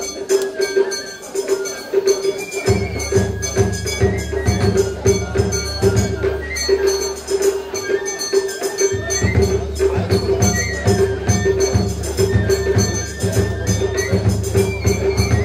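Japanese festival music (matsuri-bayashi): a high, sliding melody line over fast metal-gong strikes and low drum beats. The drums drop out for the first two seconds or so and again briefly past the middle.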